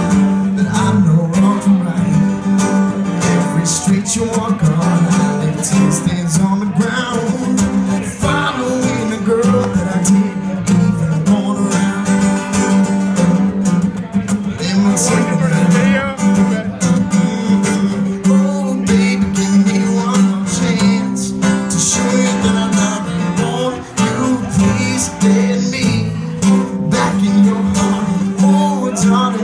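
Acoustic guitar strummed steadily in an instrumental passage of a solo song.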